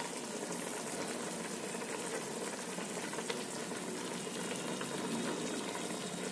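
Chicken and spiced water boiling in a cooking pot, a steady bubbling hiss with faint light crackles.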